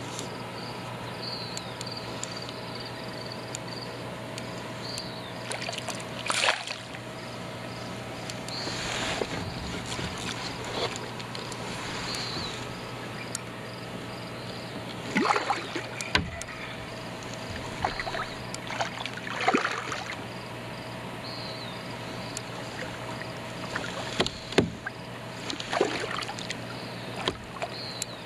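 A hooked smallmouth bass being fought beside a kayak: scattered short splashes and knocks of the fish and of rod and reel handling against the hull, over a steady faint hum.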